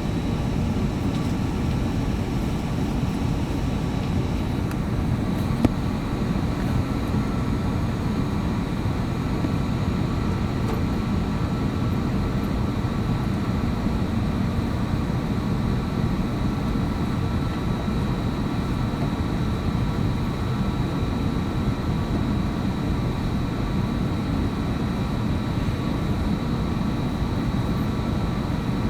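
Steady engine and air noise of an Airbus A321neo airliner heard inside the passenger cabin: an even low rumble with a thin steady whine on top. A single short click about six seconds in.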